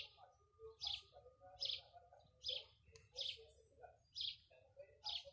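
A bird chirping over and over, a short high chirp a little under once a second, with softer, lower bird calls beneath.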